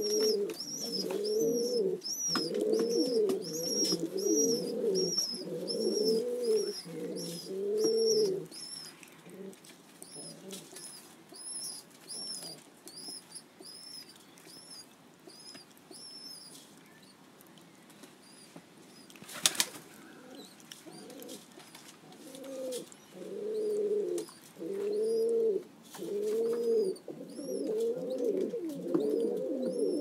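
Domestic pigeons cooing: runs of low, rising-and-falling coos through the first third and again in the last third. A string of high, thin peeps repeats over the first half, and a single sharp clap comes in the quieter middle stretch.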